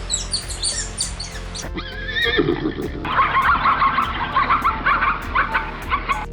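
Farm animal calls over background music: a quick run of high chirps, then a quavering call about two seconds in, followed by a long series of short repeated calls.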